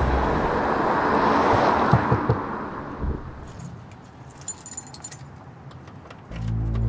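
A passing car's rush of noise fades over the first few seconds, then a bunch of keys jingles and clicks at a front door, from about three and a half seconds in. Music starts just before the end.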